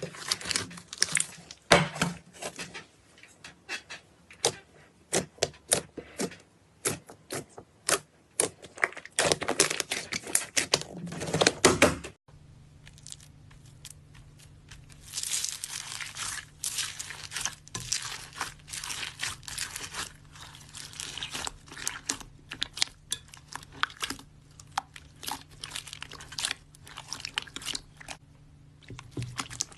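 Slime being squeezed, stretched and poked by hand, with dense sharp crackling and popping clicks. About twelve seconds in it cuts to another clip with a faint steady hum behind the crackling.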